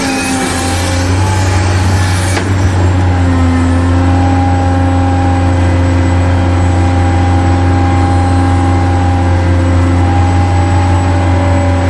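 Excavator's diesel engine running steadily with a deep, even hum. A rushing hiss lies over it for the first two seconds or so.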